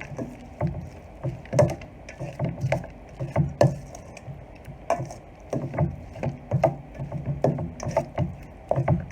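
A spoon stirring chunky chicken salad in a bowl: repeated strokes through the thick mixture, with clicks and knocks of the spoon against the bowl, about one or two a second.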